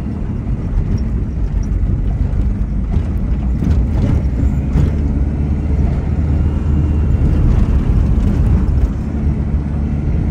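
Vehicle driving over a rough dirt track, heard from inside the cabin: a steady low engine and road rumble, with a few knocks and rattles about three to five seconds in.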